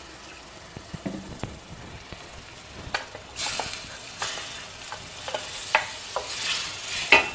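Light clinks of a steel pressure cooker, then from about three and a half seconds in, cooked spinach dal poured into hot tempering oil sizzles, with the scrape and clink of a spoon against the steel cooker.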